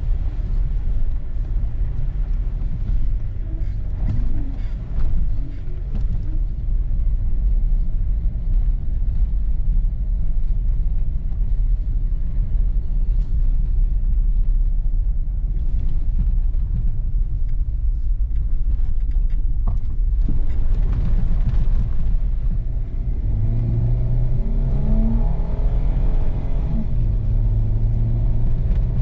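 Four-wheel-drive vehicle driving off-road, its engine and tyres making a steady low rumble; from about 23 seconds in, the engine note rises and falls as it revs.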